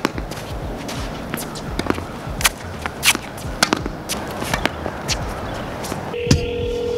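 Tennis balls struck with rackets and bouncing on a wet hard court, sharp pops at irregular intervals, mixed with shoe scuffs. Near the end a steady telephone tone starts.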